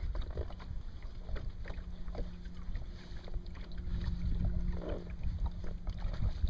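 Wind rumbling on the microphone over the faint steady hum of a boat moving slowly across the lake, with scattered light clicks as a spinning reel is worked.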